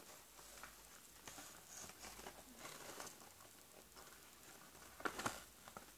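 Faint rustling and crinkling of a sheet of paper being folded by hand, with a louder crackle of the paper about five seconds in.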